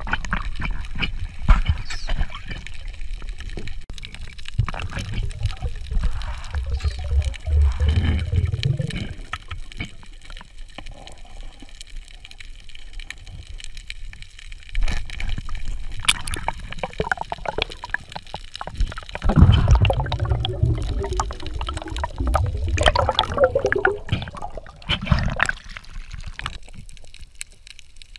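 Water gurgling and bubbling around a camera held underwater, with scattered clicks and knocks; the bubbling swells about two-thirds of the way through.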